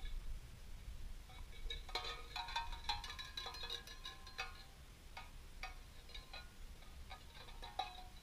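Tin cans clanking and rattling against each other as they are shaken, with a busy flurry of ringing metallic clinks about two seconds in, then scattered single clinks.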